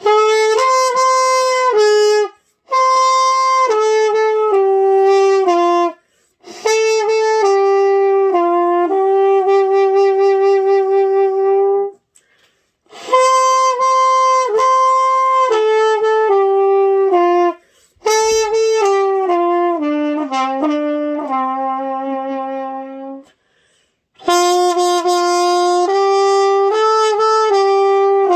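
Trumpet playing a simple, slow melody of held notes in the middle register. It goes in phrases of a few seconds, with short breaks between them.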